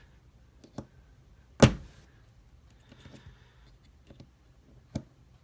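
Metal tools clicking and knocking against an Abus E20 padlock while prying at its back to get it off: a light click, then one loud knock about a second and a half in, a brief scrape, and another sharp knock near the end.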